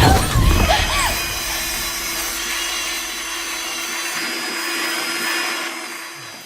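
Band saw running with a steady machine hum and high whine that gradually fades away.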